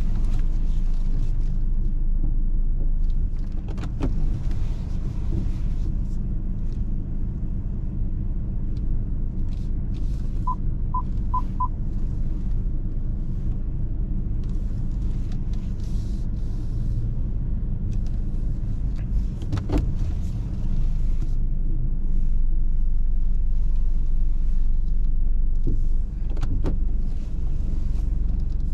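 Steady low rumble of a BMW's engine and tyres heard from inside the cabin while parking at low speed. About ten seconds in comes a quick run of four short beeps from the parking sensors, and a few sharp clicks sound at intervals.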